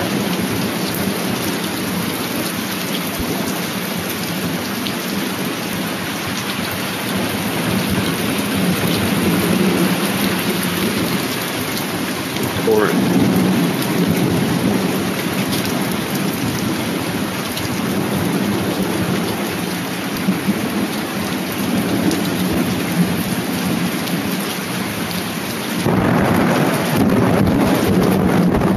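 Hailstorm: heavy rain mixed with marble-sized hail pelting the grass, paving and leaves, a dense steady patter of many small impacts that grows louder near the end.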